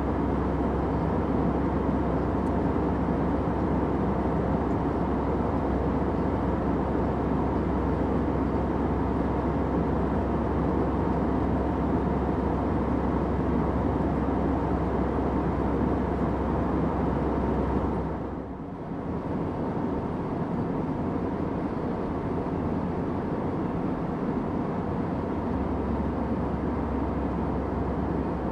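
Steady low drone of an airliner cabin in flight: engine and airflow noise with a faint hum. About two-thirds of the way through it dips briefly, then carries on a little quieter.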